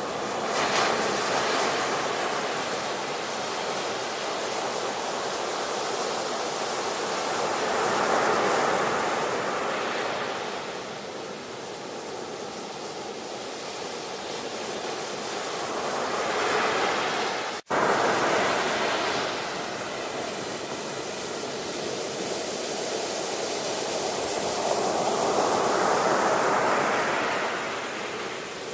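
Ocean waves washing onto a shore, a steady hiss that swells and eases back about every eight seconds. About two-thirds of the way through the sound cuts out for an instant, then resumes.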